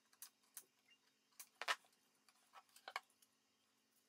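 A few faint, separate clicks as diagonal cutters snip the copper-clad aluminium speaker wires on a 6.5-inch woofer, and the freed woofer is handled. The loudest click comes a little under two seconds in.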